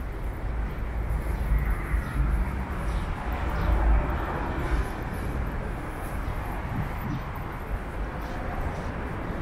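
Outdoor city background noise: a steady hiss of distant traffic with an uneven low rumble of wind on the microphone, strongest in the first few seconds.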